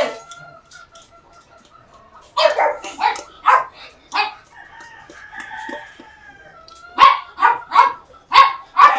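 Dogs barking: a few sharp barks about two and a half to four seconds in, then a quick run of barks near the end. Between them a rooster crows with long held calls.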